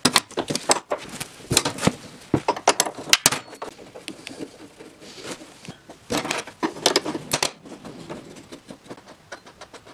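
Irregular metallic clinks, taps and rattles of hand tools and loose nuts and washers as engine mount nuts are worked off their studs on the snowmobile's motor mount rail.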